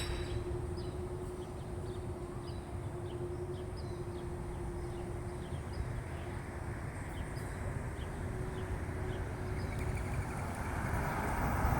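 An unexplained steady hum in the sky: a low rumble with one held tone over it, and small birds chirping now and then. Near the end the tone fades and a rushing noise swells up.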